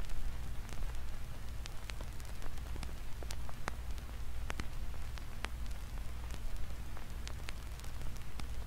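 Sparse, irregular crackling clicks, about two or three a second, over a steady low rumble and faint hiss.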